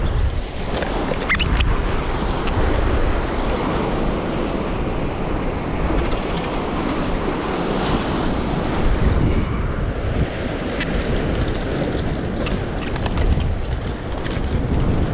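Sea surf washing and breaking against a rock shelf, with wind buffeting the microphone.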